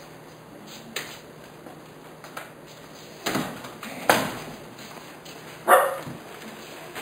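A dog barking a few times, in short sharp barks about three, four and six seconds in.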